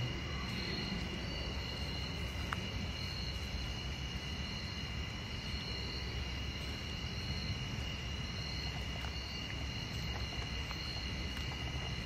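Insects droning steadily in woodland in several high, unbroken tones, the highest pulsing gently, over a low steady rumble.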